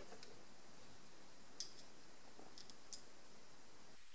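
A few faint, scattered plastic clicks over a quiet hiss as the plastic pivot-wheel housing of a Roborock S4 Max robot vacuum is handled and turned into place for its second screw. A sharper click comes near the end.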